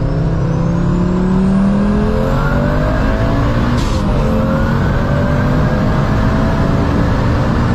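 Turbocharged Audi S2 five-cylinder 20-valve engine in an Audi 80 pulling hard under acceleration, its note rising steadily, with a short break about four seconds in before it rises again.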